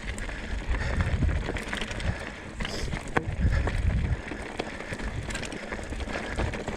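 Hardtail mountain bike rolling over a rocky trail: tyres crunching on loose stones, with many sharp clicks and knocks as rocks are struck and flicked up into the wheel, over bursts of low wind rumble on the microphone.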